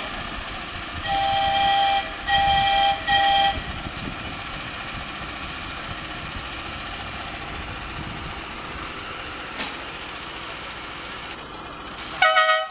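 Two-note horn of a miniature ride-on railway locomotive sounding three times, one longer blast then two short ones, over the steady running of the train. Just before the end a louder, brief whistle blast sounds.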